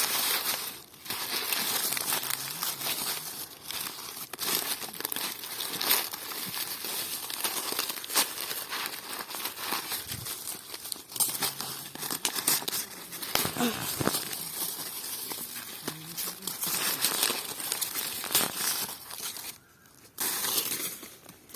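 Dry corn leaves and husks crackling and rustling in irregular bursts as ears of corn are picked by hand from the stalks.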